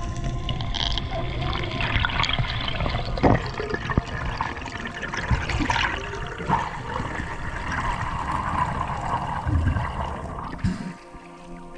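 Underwater water noise: a steady rush with bubbling and crackles as a spearfisher swims up toward the surface. It drops off sharply near the end as the camera breaks the surface.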